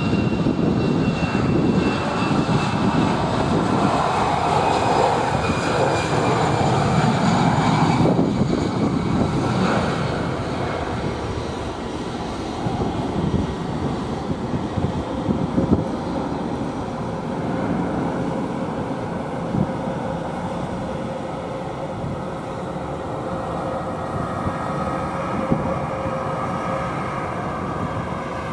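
Airbus A320's twin turbofan engines at takeoff thrust as the airliner rolls, lifts off and climbs away. The sound is loudest over the first ten seconds or so, then eases to a steadier, more distant rumble. A faint high whine glides down in pitch near the start.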